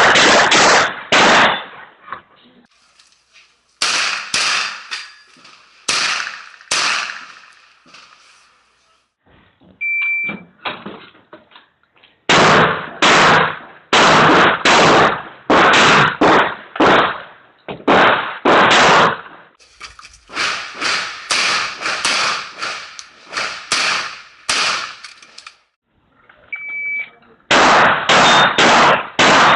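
Rapid strings of semi-automatic shotgun fire, loud, sharp shots coming in quick runs with short pauses between. A shot timer's short high beep, the start signal for a shooter's run, sounds about ten seconds in and again near the end, each time followed by fresh shooting.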